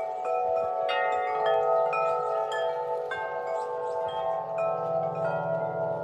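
Large tuned Corinthian Bells tubular wind chime ringing. Several long notes overlap and sustain, and fresh notes are struck every half second to a second.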